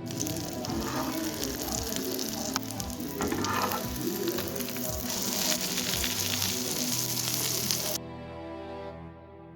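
Masala egg omelette sizzling and crackling in hot oil in a frying pan, over soft background music; the sizzle cuts off suddenly near the end, leaving only the music.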